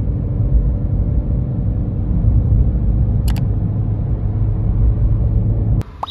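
Steady low road and engine rumble of a car driving on a motorway, as heard from inside the cabin, with a few sharp clicks; it cuts off suddenly near the end.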